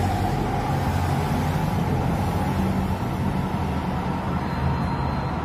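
Steady road traffic on a multi-lane urban road: cars and motorcycles passing, with a continuous hum of engines and tyre noise.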